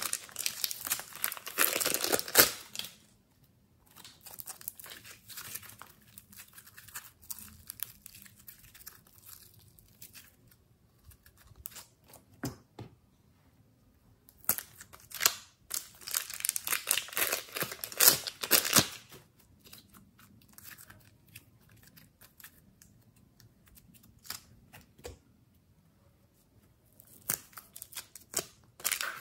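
Plastic piping bags full of clay crinkling and crackling as they are squeezed and handled. There are loud bouts of crackling at the start, in the middle and near the end, with quieter scattered crinkles between.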